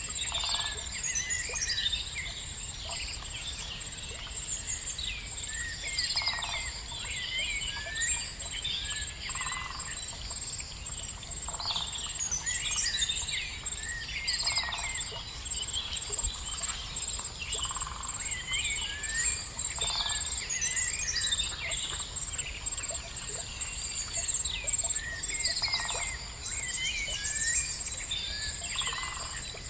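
Songbirds chirping and trilling continuously in quick, overlapping phrases over a steady high-pitched whine and low outdoor background noise.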